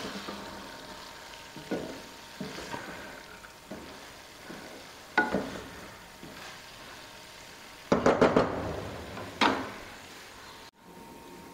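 A wooden spatula stirring and scraping fried lentil wadiyan, onions and greens in a metal kadai, over a steady low sizzle of frying. About eight seconds in comes a cluster of louder knocks and clatters, and one more about a second later.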